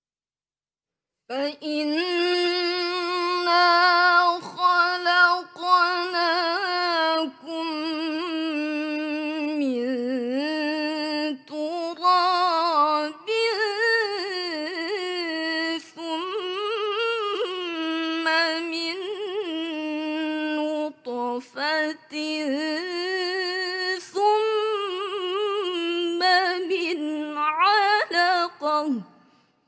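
A teenage girl's voice reciting the Qur'an in the melodic mujawwad tilawah style: one long ornamented phrase of held, wavering notes and rapid turns, starting about a second in and dying away just before the end.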